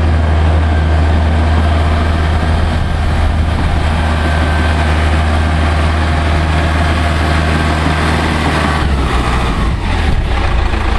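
Bulldozer's diesel engine running steadily with a heavy low hum; about nine seconds in the engine note shifts and roughens briefly.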